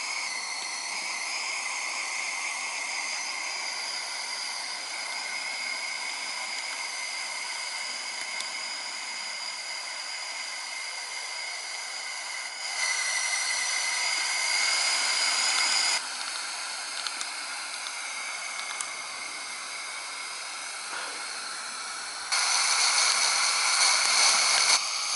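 Steady steam hiss from a coal-fired model locomotive's vertical boiler while it raises steam, most of it from the steam blower drawing the fire. It turns abruptly louder for a few seconds about halfway through and again near the end.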